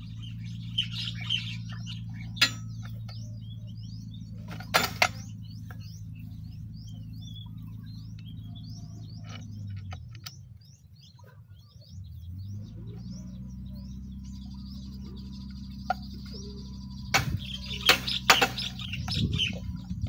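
Satellite dish's electric linear actuator motor running with a steady low hum. It stops for about two seconds midway, then starts again. A few sharp metal clinks come near the start and near the end, and birds chirp throughout.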